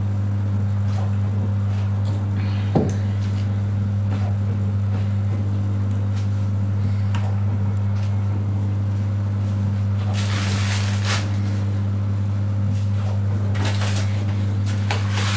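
Steady low electrical hum, with a sharp knock about three seconds in and bursts of rustling about ten and fourteen seconds in.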